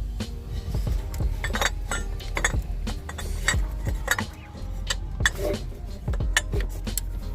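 Irregular metallic clinks and knocks of parts and tools being handled in a car's engine bay.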